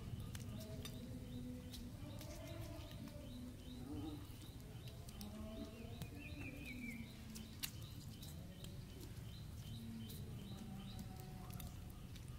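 Faint outdoor ambience: a low steady rumble with birds chirping, including a short high chirp repeated about three times a second and a single falling call about halfway through, plus a few soft clicks.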